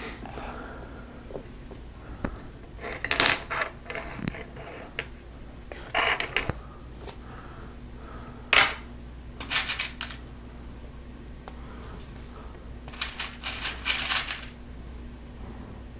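Plastic Lego Technic parts clicking and clattering as they are handled, picked up and fitted, in short scattered bursts with the sharpest click about halfway through.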